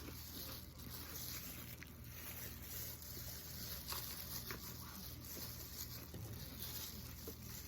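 Quiet eating: faint chewing, with a few light clicks of a utensil.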